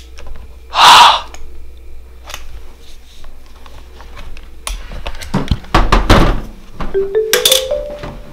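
A loud thump about a second in, then knocks and clicks of a DSLR camera being handled. Near the end a smartphone starts ringing, its ringtone a short rising run of marimba-like notes.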